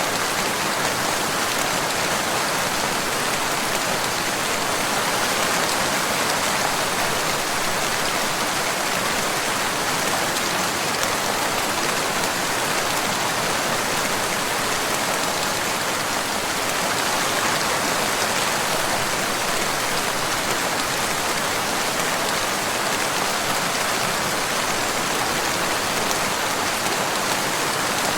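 Steady rain falling, an even hiss of many drops with no single drops standing out, unchanging in level.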